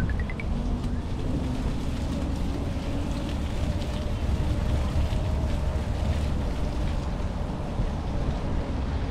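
Steady low rumble of outdoor city ambience, with wind on the microphone and distant traffic, and a faint hum running through it.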